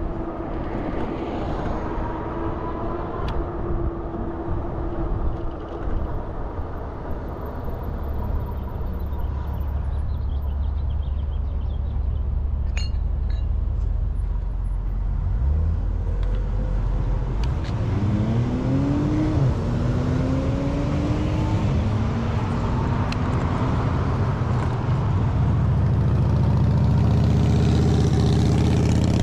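Motor traffic heard from a bicycle: a steady low rumble of vehicles, with an engine note rising and falling a little past halfway and the traffic growing louder near the end.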